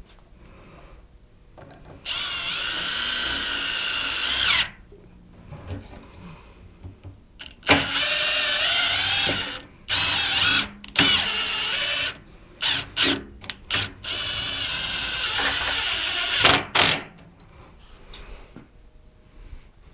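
Milwaukee cordless impact driver driving 3-inch construction screws into 2x4 framing: several runs of a few seconds each, with a few short trigger pulls in between.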